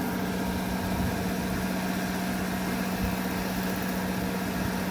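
Wood-Mizer MP360 planer/moulder and its chip extraction running steadily, a constant machine hum with a strong steady drone.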